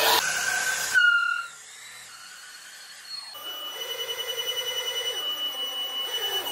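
Cordless drill spinning a threaded steel rod through a foam manikin head into the body. It runs loud and fast and stops about a second in. About three seconds in it runs again, quieter and steady, with a rapid pulsing.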